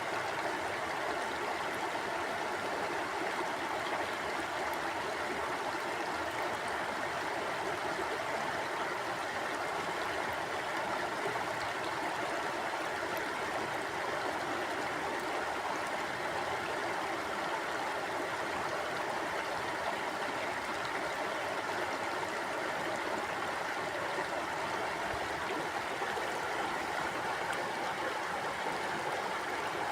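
Mountain stream flowing over rocks: a steady, even rush of running water with gurgling, unchanging throughout.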